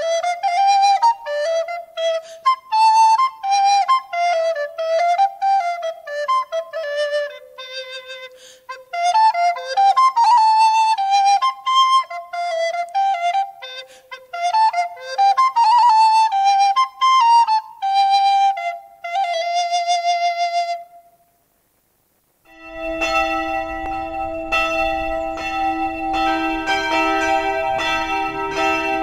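Solo wooden recorder playing a quick, lively melody that ends on a held note about two-thirds through. After a second of silence, church bells start ringing and keep on.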